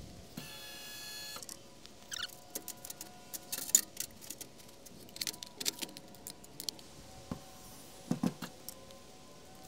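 Metal tools and aluminium ramp parts clinking and clattering as they are picked up and set down on a steel lift platform, the loudest clank a little under four seconds in. A brief motor buzz about half a second in, and a dull thump near the end.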